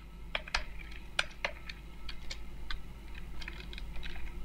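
Computer keyboard typing: an uneven run of short key clicks, a few a second, over a faint low steady hum.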